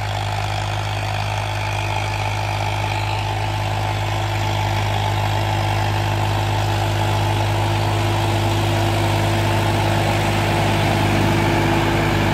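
Farmtrac 60 tractor's diesel engine running steadily while pulling a tine cultivator through the soil, growing gradually louder.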